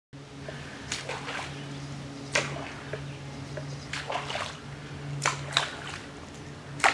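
A popping cork jerked across the water's surface, heard from underwater: sharp splashy pops every second or so, over a steady low hum.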